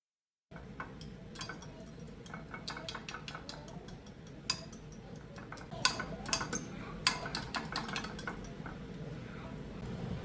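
Dishes and cutlery clinking and clattering in a string of sharp clinks, the loudest about six and seven seconds in, over a steady low hum. It starts suddenly about half a second in.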